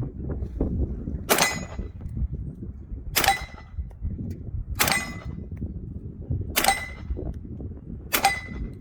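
Five suppressed shots from a 300 Blackout AR with a SilencerCo Omega 9K suppressor firing 220-grain subsonic rounds, about one every one and a half to two seconds. Each shot is followed by a short metallic ring.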